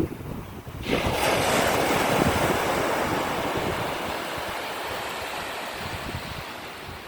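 Wind rumbling on the microphone, then about a second in a wave breaks and washes up the beach, a rush of surf that slowly fades away.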